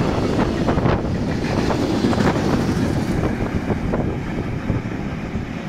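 Freight train wagons rolling past close by, wheels clattering over the rails, with wind rumbling on the microphone.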